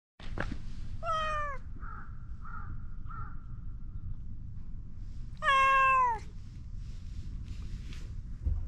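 Cat meowing twice, about four seconds apart: each meow falls in pitch, and the second is louder and longer. Three faint short sounds come between them, over a steady low background rumble.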